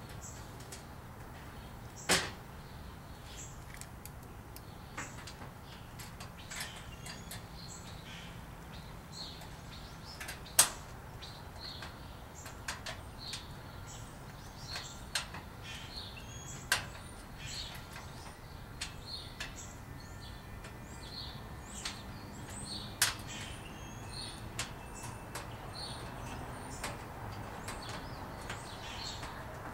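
Scattered sharp clicks and knocks of metal grill parts and bolts being handled during assembly, four of them much louder than the rest, with birds chirping in the background.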